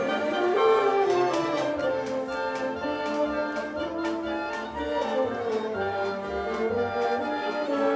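Chamber orchestra playing, strings and brass together over a steady beat.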